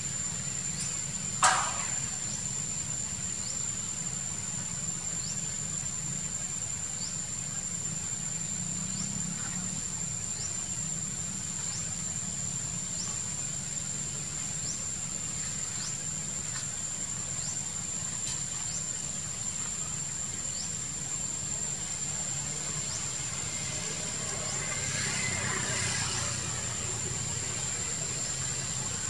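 Outdoor ambience: a steady high-pitched insect drone with short rising chirps every second or two over a low steady hum, and one sharp squeak about a second and a half in.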